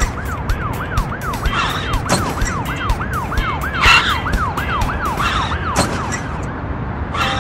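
Emergency vehicle siren in a fast yelp, rising and falling about three times a second and fading out near the end, over background music with a beat.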